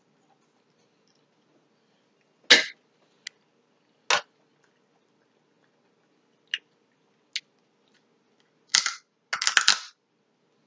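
Seafood eating sounds: irregular sharp crackles and snaps as a cooked shrimp is peeled by hand and eaten, with a quick cluster of snaps near the end.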